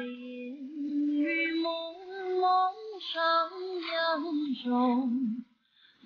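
A woman singing a melodic song, holding and bending long notes, with a short break near the end before the singing resumes.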